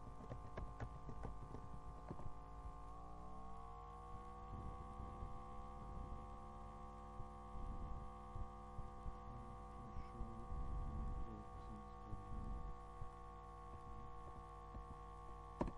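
A steady hum of several tones that rises slightly in pitch about three seconds in and then holds level, with soft, irregular low thumps underneath and a few sharp clicks near the start.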